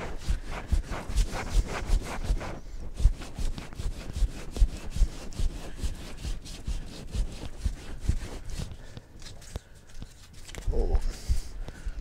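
Sandpaper rubbed by hand over body filler on a 1957 Oldsmobile Rocket 88 steering wheel rim, in quick back-and-forth scraping strokes about three a second, easing off briefly near the end.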